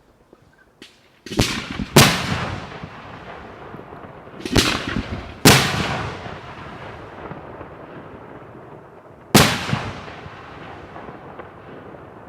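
Large aerial firework shells going off in a professional display: a small pop, then five loud bangs, two in quick succession at the start, two more about four seconds in and one near the end. Each bang is followed by a long rolling echo that fades over a few seconds.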